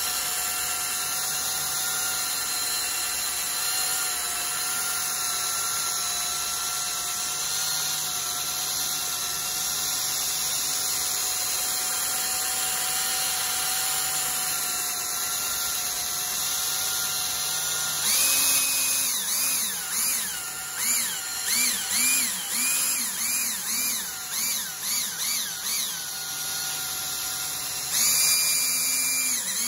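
Cordless drill spinning a foam polishing pad over car paint with coarse polish, run slowly with light pressure. The motor whines at a steady speed for most of the time. From about two-thirds of the way in, it speeds up and slows down repeatedly, roughly once a second, with a short steady stretch between.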